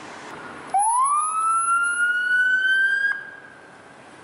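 Police vehicle siren giving one wail: it starts suddenly less than a second in, climbs quickly in pitch, then keeps rising slowly, and cuts off sharply about two and a half seconds later. Steady street noise runs underneath.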